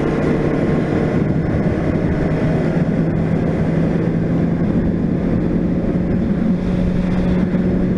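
Honda CBR600RR inline-four engine running at a steady highway cruise, its note creeping slightly upward, under heavy wind noise on the microphone.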